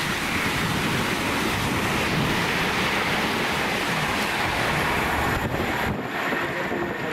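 Train passing at speed on the main line: a steady rushing roar of wheels and air that drops away about six seconds in.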